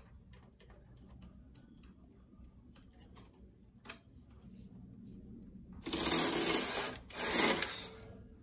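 Knitting machine carriage pushed across the needle bed to knit a row: two loud pushes of about a second each, starting about six seconds in, after a few light clicks of needles being handled.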